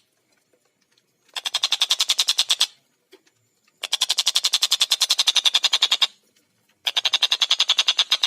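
Tengkek buto kingfisher calling in rapid rattling series: three bursts of fast, evenly spaced high notes, about a second and a half, two seconds and then longer, with short pauses between them.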